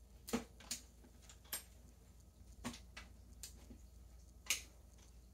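A handful of light, sharp clicks and rustles from hands handling a white plastic cosplay helmet, the loudest near the end.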